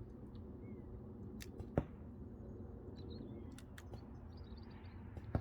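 Single shots from an ASG Scorpion Evo airsoft gun firing on semi-auto: two sharp cracks about three and a half seconds apart, with a few fainter clicks between them, over a low steady rumble.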